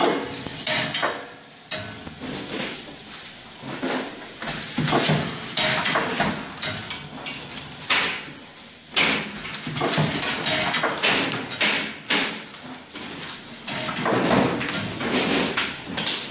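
Two-station turntable tray-sealing machine at work: irregular metallic clunks and clatter as the table turns and the sealing press cycles, with bursts of hiss between them.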